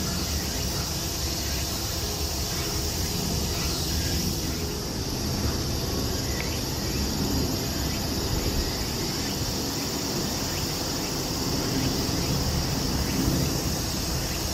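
Steady high-pitched chorus of insects shrilling in woodland, over a continuous low rumble.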